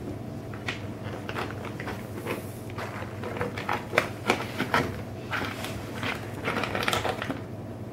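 Plastic bag of dry cat food crinkling and crackling in quick irregular runs as a cat bites and tugs at its top, loudest around the middle and again near the end.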